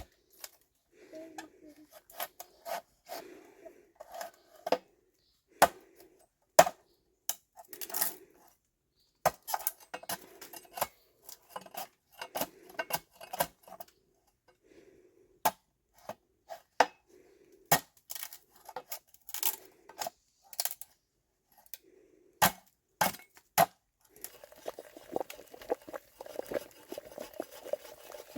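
Pots, dishes and metal utensils clinking and knocking in irregular sharp strikes. Near the end a steady bubbling of liquid on the boil sets in.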